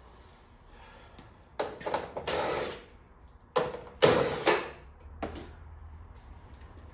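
Car parts being handled during front-end disassembly, with knocks and scraping in two clusters, about two seconds in and again about four seconds in, the second one louder.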